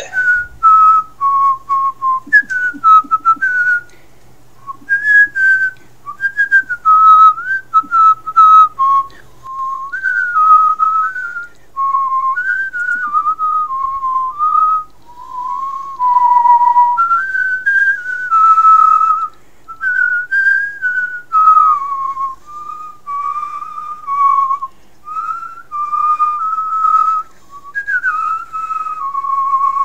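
A person whistling a tune: one clear note line moving up and down in short melodic phrases with brief pauses between them.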